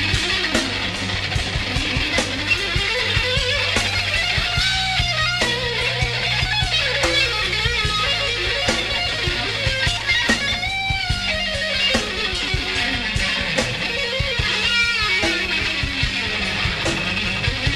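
Live instrumental rock: a Stratocaster-style electric guitar plays a winding lead line with bent notes over a held bass note and drum hits.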